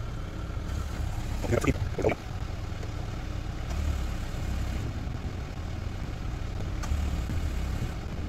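Steady low background rumble, with a brief burst of sound about two seconds in.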